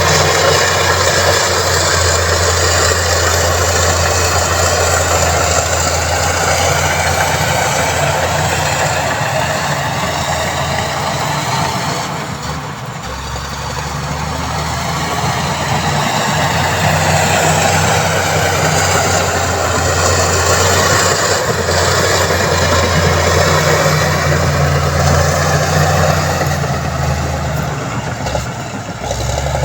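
Heavy diesel engine of road-building machinery running steadily, with a broad hiss over the low engine hum; it eases off briefly about 12 seconds in.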